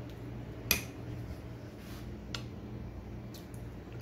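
Light clicks of kitchen utensils or dishes being handled: one sharp click a little under a second in, then a few fainter ticks, over a steady low hum.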